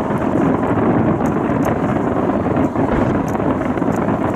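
Steady rumble of a dense fireworks barrage, with a few faint crackles on top.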